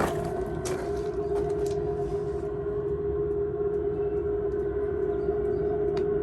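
Webasto gasoline air heater running after start-up, now putting out hot air: a steady, even whine from its blower over a low rumble.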